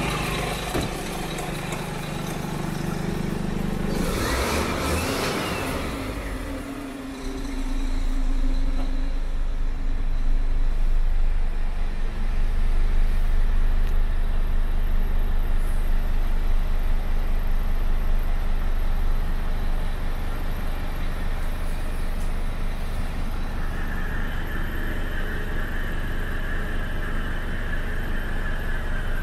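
Scania P360 tipper truck's diesel engine idling steadily, with a brief rushing noise about four seconds in.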